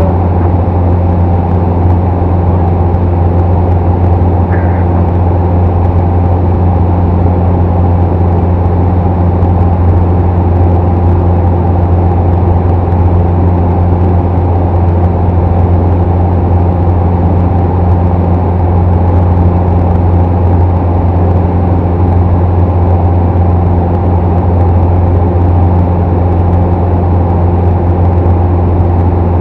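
Single-engine piston airplane's engine and propeller droning steadily inside the cabin, a deep, even hum that holds its pitch.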